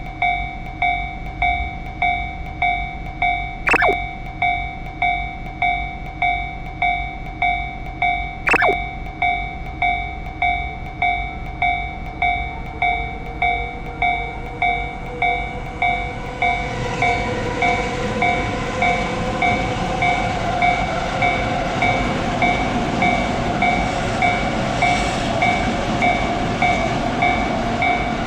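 Japanese level-crossing warning bell ringing in a steady run of evenly repeated dings, broken twice by a short falling swoop, about 4 and 8.5 seconds in. About halfway through, an electric train approaches with a rising motor whine, then passes with loud running noise while the bell keeps ringing.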